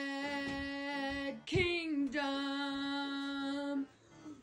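A voice singing long held notes with no accompaniment. A note that began just before is held at one steady pitch, breaks off a little over a second in, swoops back up, and settles on the same pitch for another long held note that stops shortly before the end.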